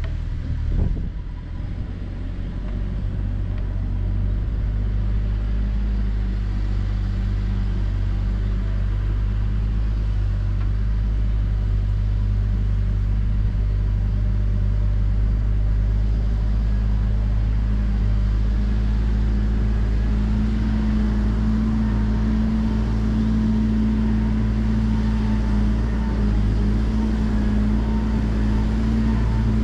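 JCB backhoe loader's diesel engine running steadily with a deep hum, a little louder after the first few seconds.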